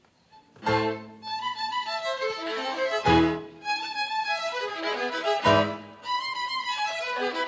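Violin playing a hymn melody over orchestral accompaniment, with full chords entering about every two and a half seconds.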